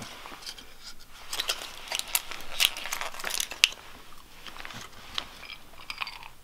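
Crinkling and crackling of a packet handled close by, with a dense run of sharp crackles through the middle that thins out into a few scattered ones.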